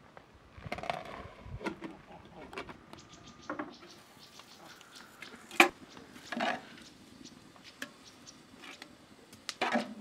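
Scattered clinks and taps of a metal spoon and ladle against metal cooking pans, with one sharp clink about halfway through and soft splashes of sauce being spooned out.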